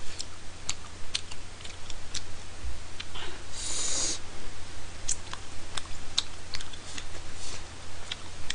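A person chewing spicy tteokbokki rice cakes close to the microphone: wet mouth clicks and smacks at uneven intervals, with a short hiss about three and a half seconds in as another rice cake goes into the mouth, over a low electrical hum.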